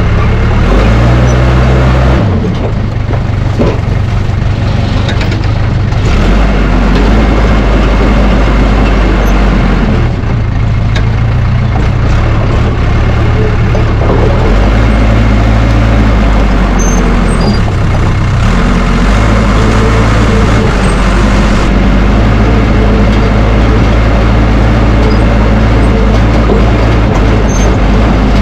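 Case 550G bulldozer's diesel engine running loud on its first start in a long while, its speed shifting up and down every few seconds.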